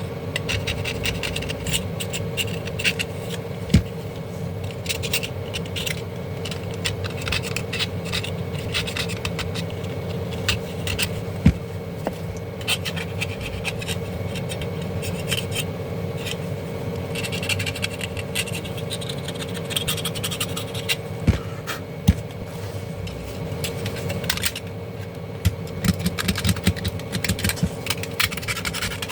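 Scraping and rubbing of hand work on a small appliance, with scattered light clicks and a few sharp taps, over a steady hum.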